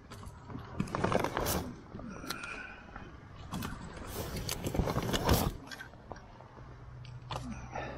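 Motorcycle luggage being unpacked by hand: a soft saddlebag's fabric and straps rustling and scraping, with a metal strap hook and a plastic gallon water jug knocking and crinkling. Irregular handling noise, heaviest about a second in and again about halfway through.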